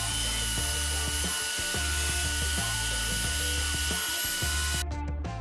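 Table saw ripping a wooden strip along its length: a steady high whine over loud hiss while the blade cuts. The saw noise stops abruptly near the end, leaving background music with a steady beat that runs underneath throughout.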